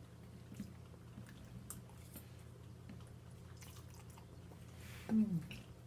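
Close-miked eating of soft pasta and dressing: faint wet chewing and small mouth clicks. About five seconds in comes one short, low vocal 'mm' that falls in pitch.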